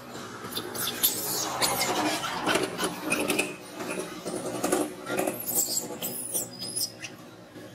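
Baby macaque giving a rapid string of high-pitched squeals and cries, the distress calls of an infant being denied milk during weaning, with rustling of dry leaves underneath.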